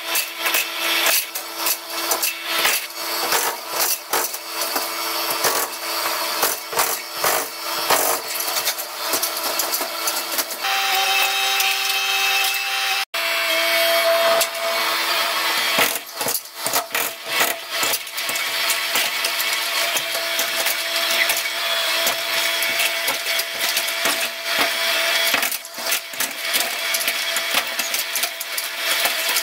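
Mini excavator's hydraulic breaker hammering and breaking out masonry walls, dense irregular knocks and crumbling debris over the machine's steady running.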